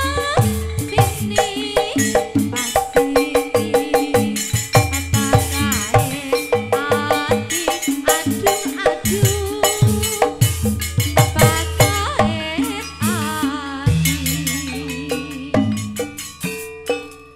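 Jathilan dance accompaniment music: a live percussion-led ensemble of drums and ringing struck metal tones in a fast, busy rhythm, with a wavering melody line over it. From about fourteen seconds in the texture thins and a lower held tone comes through.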